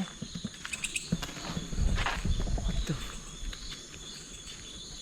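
Night insect chorus of crickets trilling steadily at several high pitches. Irregular low knocks and scuffs run underneath, with a brief rustle about two seconds in.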